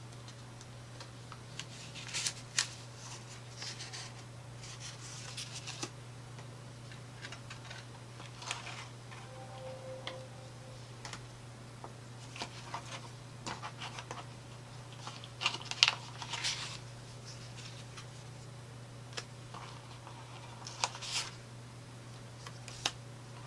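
Paper scrapbook album pages and tags being handled: scattered short rustles, clicks and taps of card as pages are turned and tags lifted, loudest about two-thirds of the way through, over a steady low hum.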